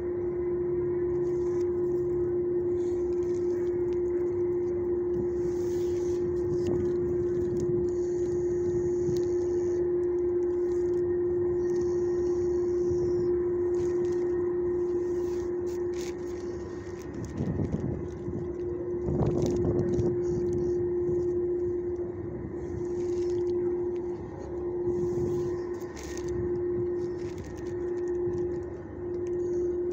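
A steady mechanical hum that breaks into short on-off pulses in the last several seconds, over rough low rumbling and handling noise.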